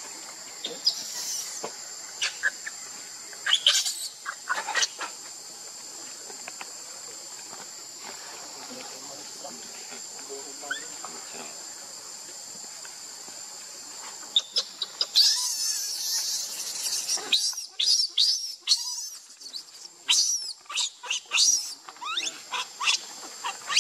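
Baby macaque crying: repeated short, shrill squeals and screams, coming thick and fast from about halfway through. Insects drone steadily in the first half.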